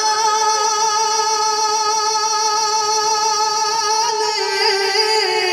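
A man's voice holding one long sung note of a naat over a microphone, nearly steady in pitch with a slight waver about four seconds in.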